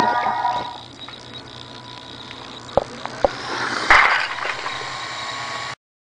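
A toy Lego train crashing: two sharp plastic clicks, then a brief loud clatter of plastic bricks about four seconds in. A held electronic tune stops under a second in.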